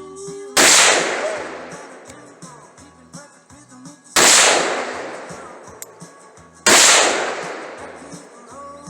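Three rifle shots, the second about three and a half seconds after the first and the third about two and a half seconds later, each ringing out in a long fading echo. Faint music plays underneath.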